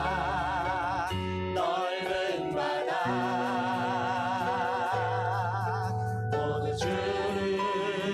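Background music: a Christian worship song, a voice singing long notes with vibrato over sustained low chords.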